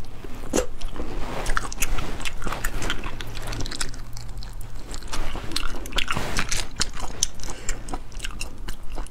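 Close-up eating of spicy cooked sea snails: sucking the meat out of the shells and chewing, with many small, irregular clicks and crackles.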